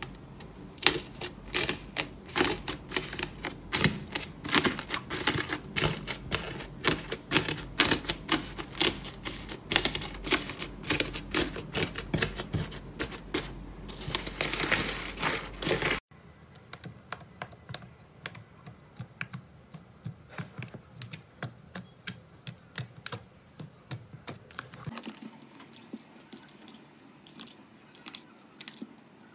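Hands pressing and kneading thick pink slime full of small white beads, giving a dense, rapid crackle of clicks and pops. About halfway through, after a cut, green slime is peeled out of a clear plastic compartment box with quieter, sparser clicking and sticky pops.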